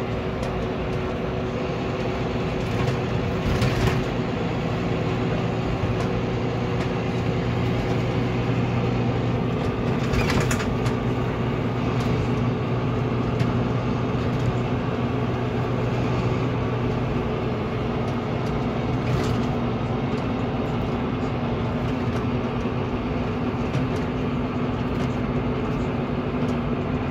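Volvo B9R coach's rear-mounted 9.4-litre six-cylinder diesel engine droning at cruising speed, heard from inside the passenger cabin with steady tyre and road noise. The engine note changes a little over halfway through, and a few brief knocks or rattles come through.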